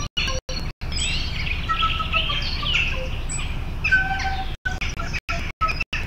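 Small end-blown woodwind played in short bird-like chirps, glides and brief held notes, imitating birdsong. The sound cuts out completely in several brief gaps.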